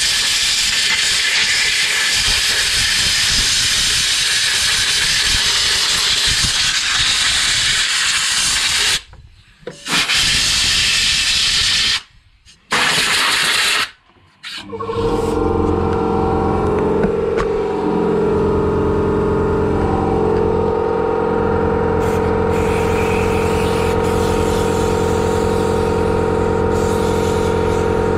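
Aerosol brake cleaner hissing in long sprays onto a motorcycle's rear brake caliper and disc, stopping briefly three times. After about fifteen seconds the hiss gives way to a steady sound of held tones at several pitches.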